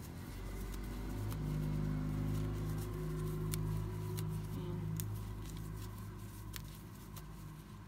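A low, steady motor hum that swells about a second in and fades toward the end, with scattered faint light ticks.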